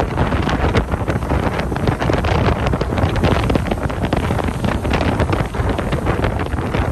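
Strong wind buffeting the microphone: a loud, constant low rumble with rapid gusty crackle.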